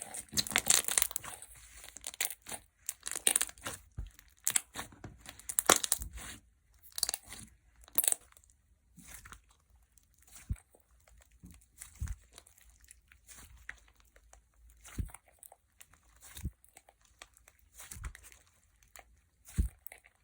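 Clear gel slime being squished and stretched by hand, giving dense wet clicks and crackles for the first several seconds, then sparser single pops and squelches with short pauses between.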